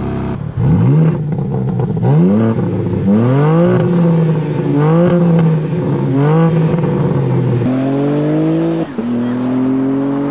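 BMW M4 Competition's twin-turbo inline-six exhaust: idling, then five quick revs, each rising in pitch and dropping back to idle. After that comes a longer pull, slowly rising in pitch, broken by one short dip about nine seconds in.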